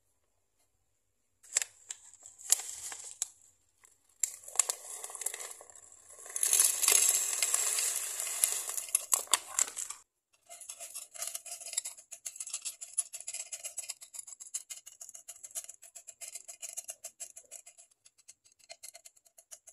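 Small porous stones poured into a glass terrarium tank, rattling and clattering against the glass, loudest from about four to ten seconds in, after a few sharp knocks. After that comes a steady run of quick, light clicks as a brush works over the stone layer.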